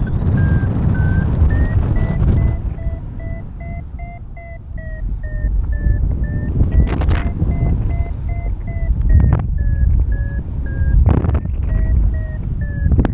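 Paragliding variometer beeping two to three times a second, its pitch rising and falling with the climb rate: the sign of the glider climbing in lift. Heavy wind rush on the microphone runs underneath, with a few short sharp rustles.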